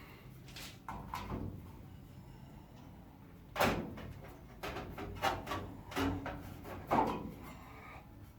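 A series of sharp metal clunks and knocks as a steel repair piece is offered up and pressed against the car's bodywork, about seven in all, the loudest about three and a half seconds in.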